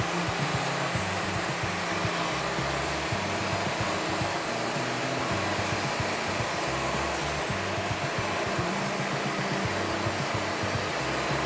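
Steady, even whooshing of a band sawmill running through a log, with a stepping low bass line of background music underneath.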